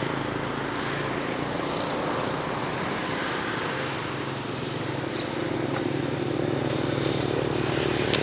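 Small petrol engine of a long-tail boat running steadily, growing louder in the second half.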